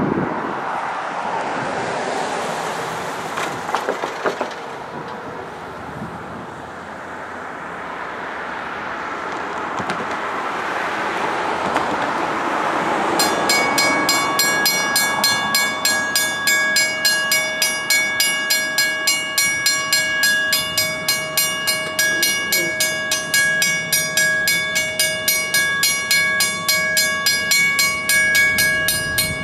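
A steady rushing noise for about the first half. Then, about halfway through, a railway level-crossing warning bell starts and keeps dinging in a steady, even rhythm of about two strikes a second, as the crossing activates for an approaching train.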